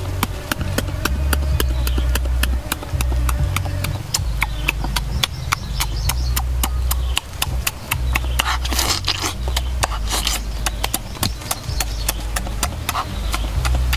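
Background music: an even ticking beat of about three and a half clicks a second over a low bassline that steps from note to note about every second.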